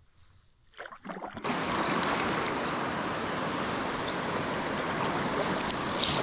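Whitewater rushing loudly around a kayak on a river rapid, coming in abruptly about a second and a half in after near silence, with a few splashes just before it.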